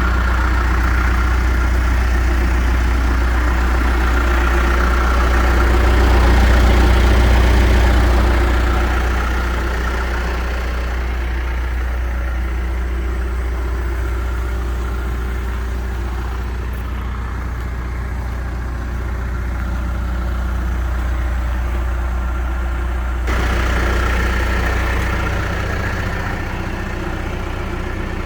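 Diesel engine of a John Deere 315SG backhoe loader running steadily near idle, swelling louder for a couple of seconds about six seconds in. The sound changes abruptly about twenty-three seconds in.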